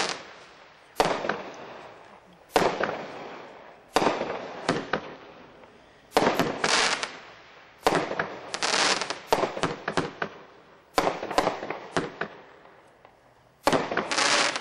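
200-gram, 20-shot fireworks cake firing its shots one after another, about one every second and a half. Each is a sharp report followed by a brief dense crackle as the shell breaks.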